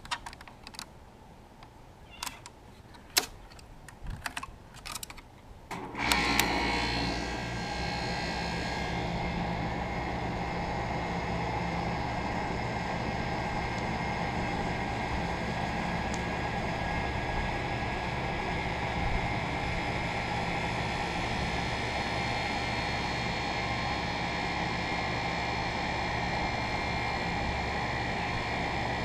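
A few scattered clicks, then about six seconds in a 2001 York 2.5-ton central air conditioner's outdoor condensing unit starts up: a brief surge, then the steady hum of its Bristol reciprocating compressor and the whir of its condenser fan, running on evenly through its first startup of the season.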